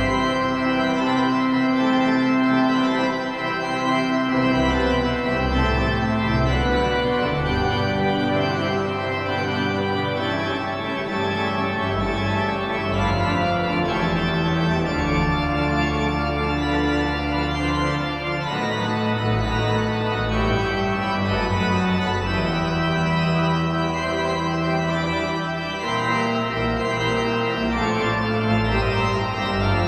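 Organ music playing slow, sustained chords, the bass note shifting every few seconds.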